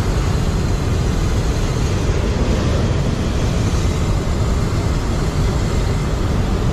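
Hot-air balloon propane burners firing to heat the envelopes: a loud, steady rushing noise, heavy and rumbling at the low end.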